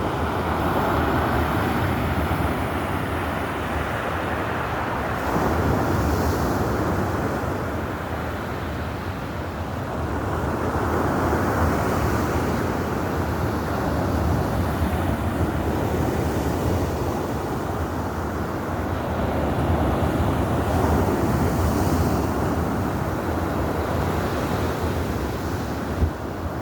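Stormy sea: a heavy, continuous rumble of waves breaking, swelling and easing every few seconds, with wind buffeting the microphone.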